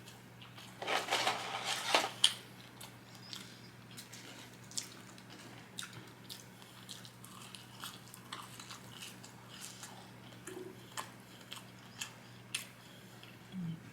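Close-up eating sounds from a person eating fast food: a dense noisy burst about a second in, then scattered short, soft chewing and mouth clicks.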